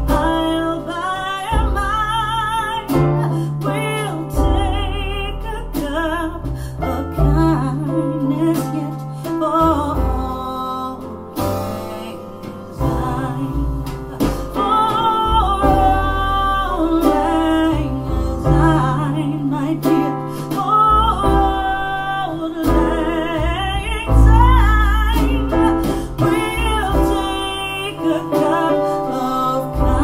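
A pop song with sung vocals, guitar and deep bass notes, played through a pair of PMC Prodigy 1 bookshelf speakers and recorded by a microphone in the room as a speaker sound test.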